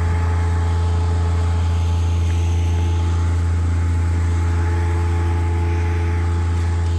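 Tractor engine idling steadily, an even low drone with no revving.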